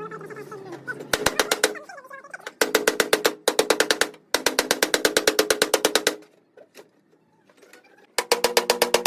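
Impact wrench hammering in short bursts of rapid, rattling strikes, stopping and starting several times, with a pause of about two seconds in the second half.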